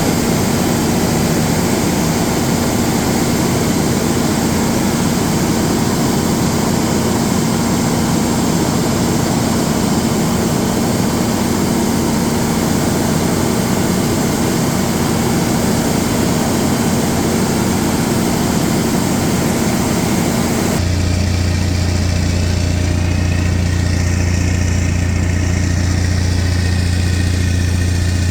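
Large diesel generator running steadily: a loud, even drone with a steady hum. About two-thirds of the way through, the sound changes suddenly to a deeper hum with much less hiss.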